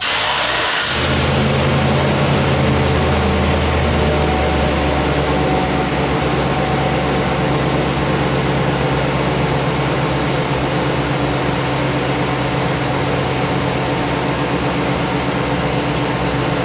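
Chevy Silverado 2500HD pickup engine starting and settling into a steady idle, running on a newly replaced in-tank fuel pump.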